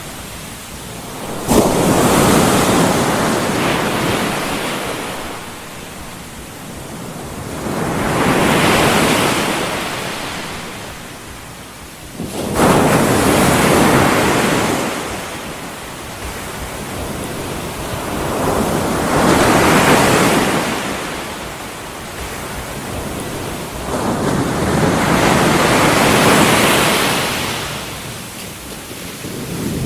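Ocean surf used as a white-noise bed: waves break and wash in, swelling and ebbing about once every six seconds, five times over.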